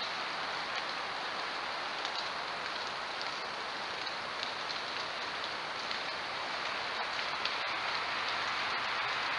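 A steady, even hiss with faint scattered ticks.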